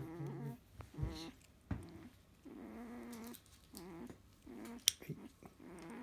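Eight-day-old Labrador Retriever puppy grunting and whimpering in about six short calls, one longer in the middle, while its claws are being clipped. A couple of sharp clicks from the steel nail clipper.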